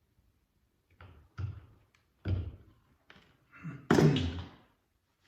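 Wire strippers and electrical cable being worked as the insulation is stripped from the wires: a string of about five separate taps and knocks, the loudest near the end.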